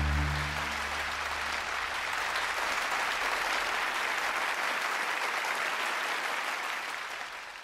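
Audience applause, steady and dense, fading out at the very end. A held music chord dies away in the first second.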